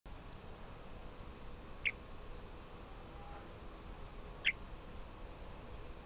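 Grassland insects chirping: a steady high trill under a pulsed chirp that repeats two or three times a second. Two brief separate chirps stand out, about two seconds in and again near four and a half seconds.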